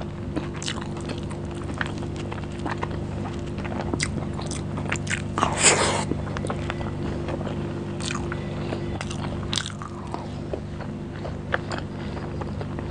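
Close-miked chewing and wet mouth clicks of someone eating rice and curry by hand, with a louder, denser crunchy burst about halfway through. A steady low hum runs underneath.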